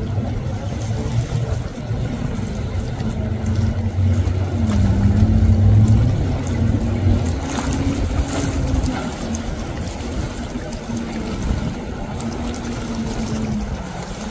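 Jet ski engine running with a steady hum whose pitch dips about five seconds in and climbs again a couple of seconds later.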